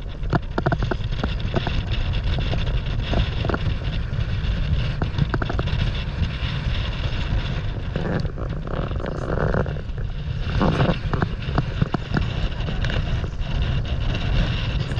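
Strong gusty wind buffeting the microphone in a steady heavy rumble, with choppy sea water slapping and splashing around a stand-up paddleboard. There are brief louder splashes about eight and ten and a half seconds in.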